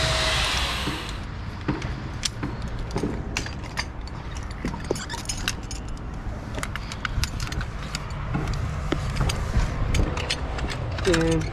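Scattered metal clinks and clicks of rope-access gear over a steady low rumble of street traffic far below.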